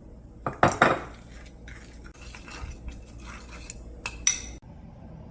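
Kitchen utensils and dishes clattering: a few sharp knocks, scraping and handling noises, then two bright ringing clinks a little after four seconds in.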